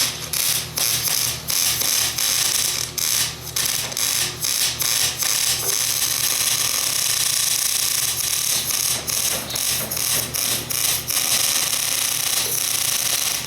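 Electric welding arc crackling and sizzling as a bead is laid on a steel mower deck, with a few short breaks where the arc drops. A steady low hum runs underneath.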